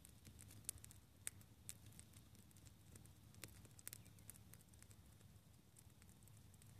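Near silence: a faint low hum with scattered small clicks and ticks throughout, a few of them sharper in the first second or two.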